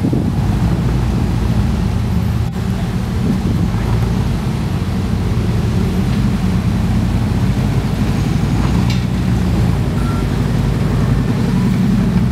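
Off-road rock-crawler buggy's engine running steadily as the buggy crawls over rough dirt ruts.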